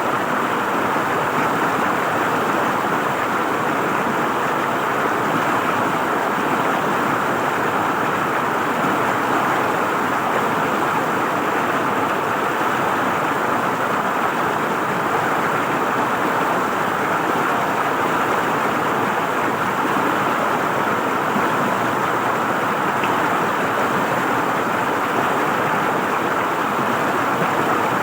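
River water flowing and gurgling, a steady even rush that does not change.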